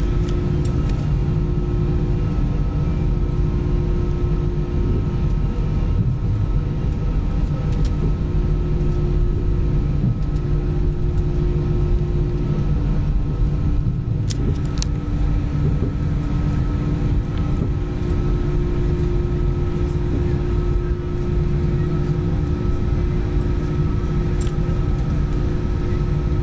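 Airbus A320 jet engines running at low thrust while the airliner taxis after landing, heard inside the passenger cabin as a steady low rumble with a constant hum. A couple of faint clicks about halfway through.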